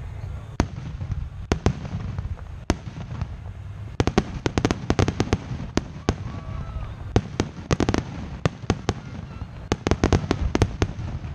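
Fireworks grand finale: aerial shells bursting with sharp bangs, a few single ones at first, then dense rapid volleys about four seconds in, again near eight seconds and near the end, over a continuous low rumble.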